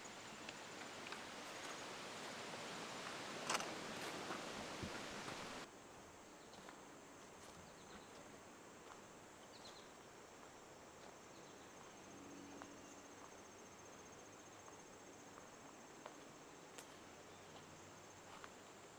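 Quiet woodland ambience with a faint, steady, high-pitched insect trill. For the first five or so seconds a louder rustling hiss with a few sharp clicks plays over it, then stops abruptly.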